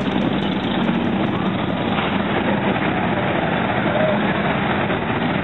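Several motorcycle engines running in a group ride, heard as a steady mixed drone with voices underneath.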